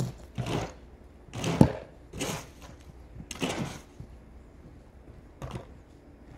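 Footsteps crunching in deep fresh snow: about five separate crunches at an uneven pace, the second one the loudest.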